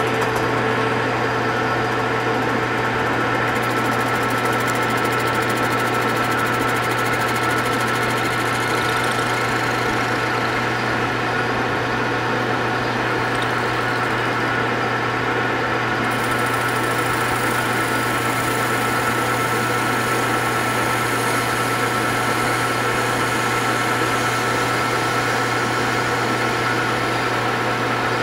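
Metal lathe running steadily with a constant motor and gear hum while a tool faces the end of a 2.5-inch 6061 aluminium bar. A higher hiss joins about halfway through as the cut goes on.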